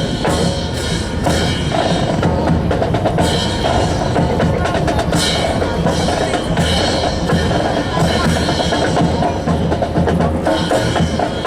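Drum-heavy music with a steady bass drum beat, with many sharp wooden-sounding clacks over it.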